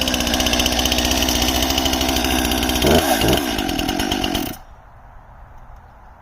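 STIHL MS261 professional chainsaw's two-stroke engine running at a steady speed, its pitch swooping down and back up about three seconds in, then cutting out suddenly near the end as the new saw stalls.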